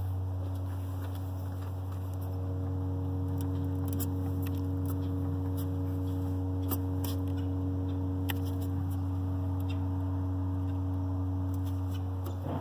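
A steady, very low-pitched hum with fainter higher tones above it, heard around a Jeep Cherokee XJ after its engine has been shut off and its battery removed. The owner cannot identify its source.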